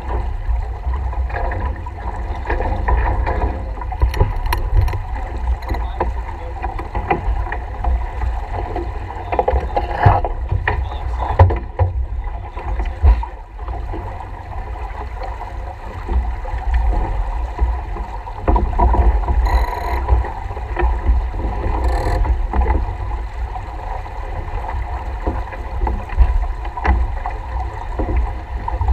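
Small racing keelboat under sail: water rushing along the hull and wind buffeting the microphone in a steady low rumble, with occasional sharp knocks.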